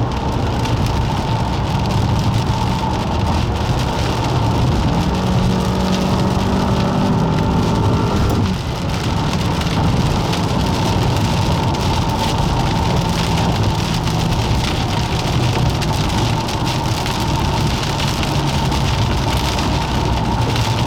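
Steady rain falling hard, a dense patter over a low rumble with a faint steady hum. A second, pitched hum joins about five seconds in and cuts off suddenly about eight seconds in.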